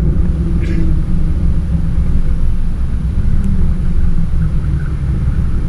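Cessna 206 Stationair's six-cylinder piston engine and propeller running with the plane on the runway, heard from inside the cabin as a steady low rumble.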